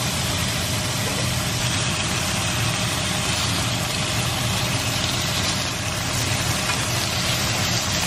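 Thin slices of beef sizzling steadily in a hot frying pan, with a low rumble underneath.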